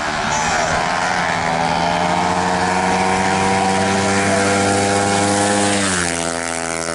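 Drag racing motorcycle engine running hard at high revs during a run, its pitch climbing slowly and then dropping suddenly about six seconds in.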